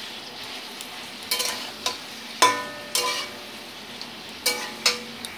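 Ridge gourd and potato pieces sizzling in a metal kadai while a metal spatula stir-fries them. The spatula knocks and scrapes against the pan about six times, each knock ringing briefly, the loudest about halfway through.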